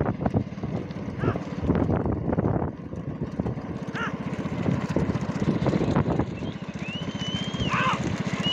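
Motorcycle engine running at a steady road speed close by, with other motorcycles following. A shrill wavering whistle starts about seven seconds in.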